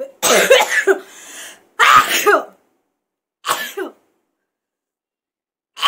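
A woman sneezing hard three times in quick succession, about a second and a half apart, with a fourth sneeze starting near the end. The sneezes are brought on by tickling the inside of her nose with a cotton bud.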